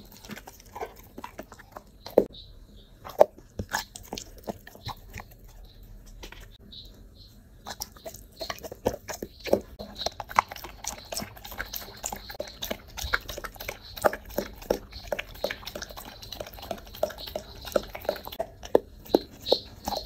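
A dog chewing and crunching food from a plate, with wet mouth smacks. The sounds are sparse and quieter a few seconds in, then come thick and fast from about eight seconds on.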